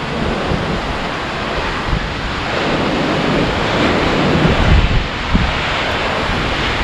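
Ocean surf surging and breaking in a narrow sea-cliff chasm, a steady rush of white water, with wind buffeting the microphone in low gusts.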